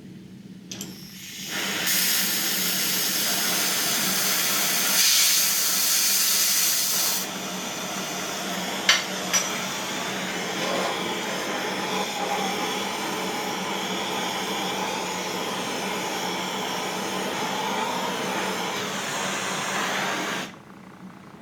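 A loud steady hiss starting about two seconds in, a little quieter after about seven seconds, with two sharp clicks near nine seconds, then cutting off suddenly near the end.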